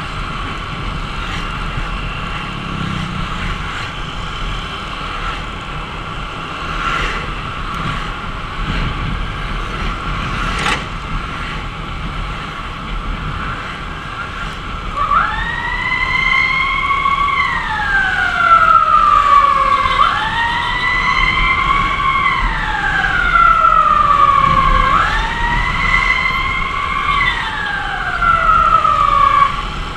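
An emergency siren starts about halfway through in a slow wail: each cycle rises quickly and then falls slowly, three cycles about five seconds apart. Underneath is the steady noise of the motorcycle riding in traffic.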